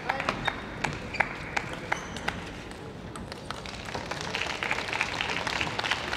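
Scattered clapping and low crowd noise from spectators after a table tennis point is won, with sharp isolated taps throughout. The crowd noise thickens a little about four seconds in.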